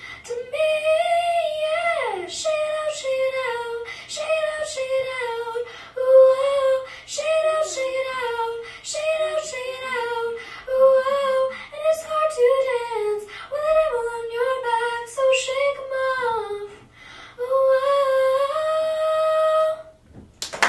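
A girl singing solo a cappella into a microphone, phrase after phrase, the last line ending on a long held note that stops about a second before the end.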